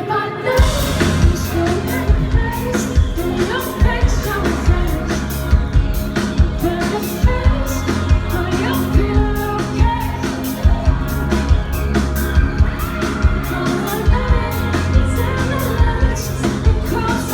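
A live rock band playing loud amplified music, with a woman singing lead over a steady drum beat; the full band comes in about half a second in.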